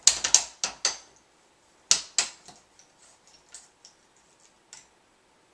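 Sharp clicks and knocks from a light stand's flash bracket and a metal umbrella shaft being handled and fitted together. Several come quickly in the first second and two more about two seconds in, then fainter ticks die away.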